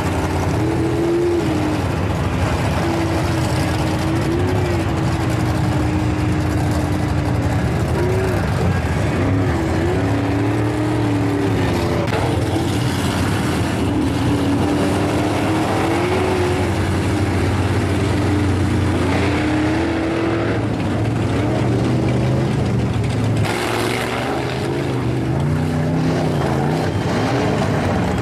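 Lifted mud-bog trucks' engines revving as they drive through a mud pit, the engine pitch rising and falling again and again as the drivers work the throttle.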